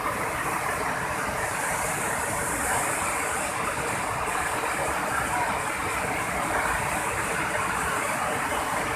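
River in flash flood, brown floodwater rushing steadily over a concrete weir.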